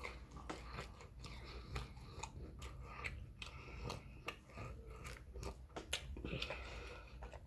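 Close-miked chewing and biting of fried chicken and fried rice: irregular crunches, wet mouth clicks and smacks.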